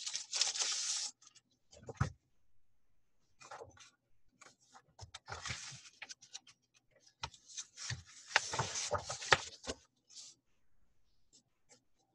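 Paper cross-stitch chart sheets and a plastic kit bag rustling and crinkling as they are handled and leafed through. The sound comes in several bursts with quiet gaps, the loudest about two-thirds of the way in.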